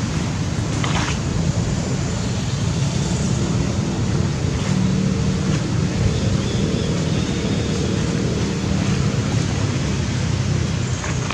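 Steady low rumbling noise, with a few faint brief sounds over it.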